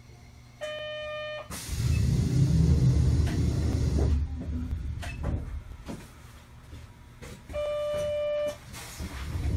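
Inside a Sapporo streetcar: a short electronic signal tone sounds twice, about seven seconds apart. A loud low rumble of the tram starts suddenly after the first tone.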